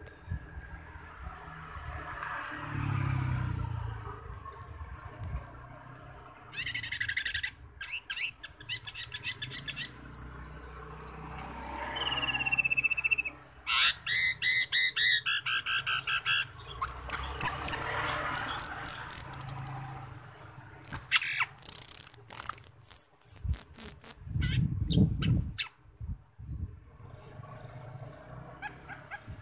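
Asian glossy starling (cucak keling) singing loud and shrill: a varied run of high whistles, chirps and rapid trills, with a long whistle that drops in pitch about two-thirds through. It goes quieter near the end.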